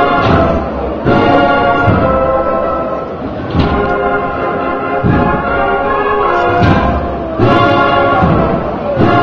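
Live processional band music: brass instruments holding the notes of a slow Holy Week march, with heavy drum beats.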